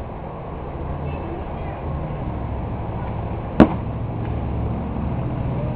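A single sharp firework bang about three and a half seconds in, over a steady low background rumble.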